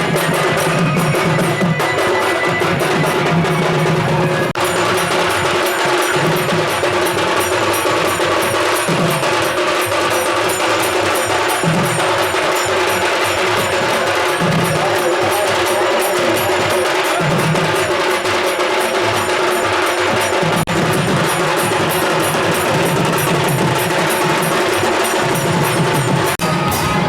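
Loud percussion-led music playing continuously with a fast, steady beat.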